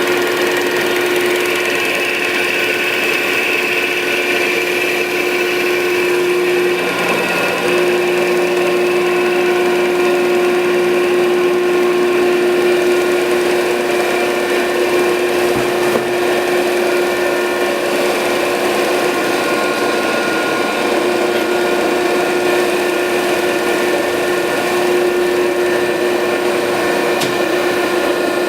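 Landis 1R universal cylindrical grinder running under power: a steady machine hum and whine from its motors and drives. The main hum tone drops out briefly about seven seconds in, then carries on steadily.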